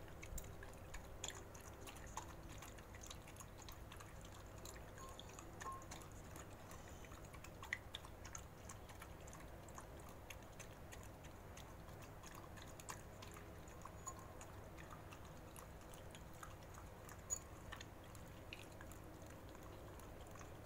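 A dog eating from a bowl of broth: quiet wet chewing and lapping, with scattered small clicks as it works at the food.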